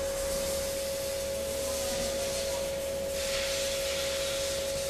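Graphic-arts machine running steadily in continuous mode: a constant mid-pitched whine over a low hum, with a faint hiss.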